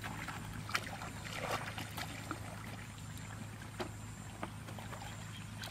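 Shallow muddy water splashing and sloshing as people wade through a flooded rice paddy and bail water with a plastic bucket. Scattered small splashes and clicks sit over a steady low hum.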